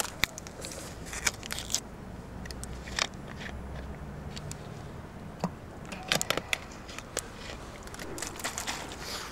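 Thin plastic water bottle crackling and clicking as it is handled, in scattered sharp crinkles, some in quick clusters, over a faint low rumble.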